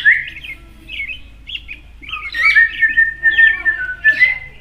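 Pet bird singing on command: a run of short chirps and whistled notes, with a longer steady whistle in the second half.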